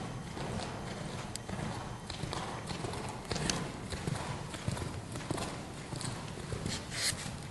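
Oldenburg horse trotting under saddle on sand arena footing: a steady run of hoofbeats.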